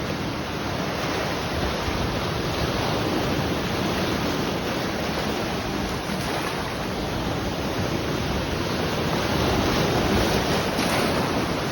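Sea waves washing onto the shore: a continuous rushing that swells slightly near the end.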